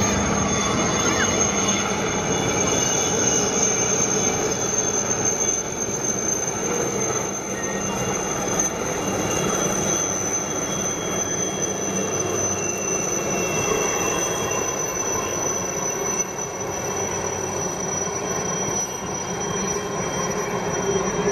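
Formation of military helicopters flying overhead: a steady whir of engines and rotors with a high, steady turbine whine.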